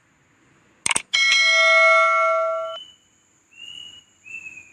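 A short click, then a bright bell-like ding that rings for about a second and a half and cuts off abruptly. Two short, faint high tones follow near the end.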